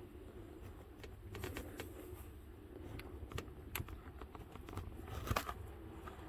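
Scattered light clicks and taps of hand tools and metal engine parts being handled, with one louder knock about five seconds in, over a steady low hum.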